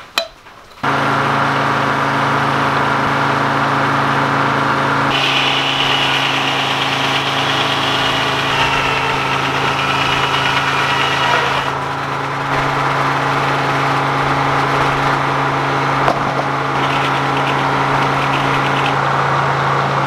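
Frick circular sawmill running, its Detroit Diesel power unit and drive humming steadily. A higher whine joins from about five seconds in until nearly twelve, and again briefly near the end.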